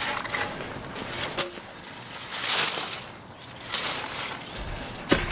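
Irregular rustling and crunching of dry twigs and brush underfoot while a wooden log is handled, with a couple of short knocks, the sharpest near the end as the log is set down.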